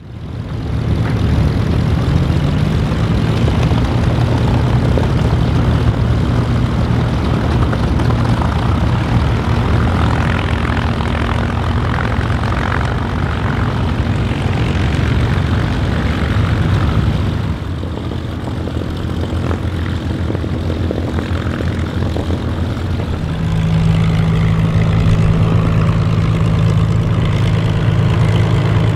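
Piston V-12 engines of WWII fighters, Rolls-Royce Merlins and an Allison, running at low power as a Hawker Hurricane, Supermarine Spitfire and Curtiss P-40 Warhawk start up and taxi. The sound is a steady low propeller-engine drone. It shifts a little past halfway, then settles into a louder, even hum as the P-40 taxis close by.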